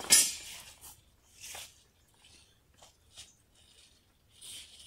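Tomato plant leaves and stems rustling as they are handled and pulled by hand, in a few short bursts with a couple of small clicks between them; the loudest burst comes right at the start.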